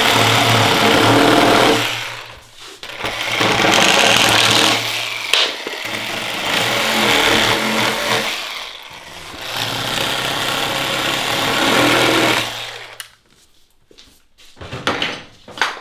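Cordless reciprocating saw running and cutting into the top of a wooden post, in four bouts with short pauses, stopping about twelve seconds in. A few light knocks follow near the end.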